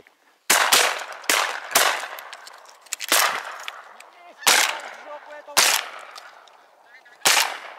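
Shotguns firing at a flock of geese overhead: about eight shots in quick, irregular succession, some less than a second apart.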